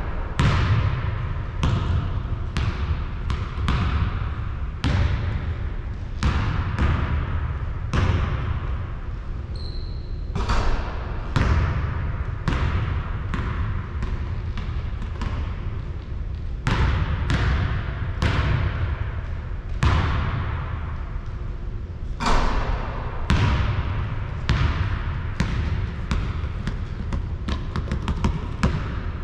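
Basketball bouncing repeatedly on a court floor, irregular hits about one to two a second, each with an echoing tail. A brief high squeak sounds about ten seconds in.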